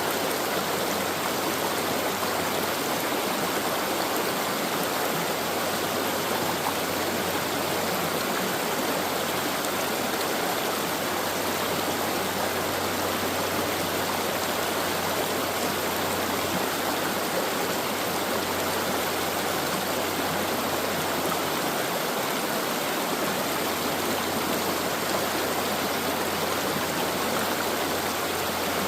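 Stream water rushing and splashing steadily over rocks, an even unbroken flow.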